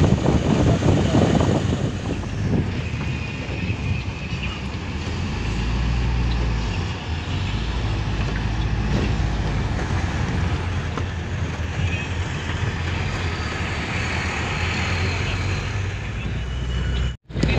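Steady engine and road noise heard from inside a moving vehicle, a continuous low hum. The sound drops out for a moment near the end.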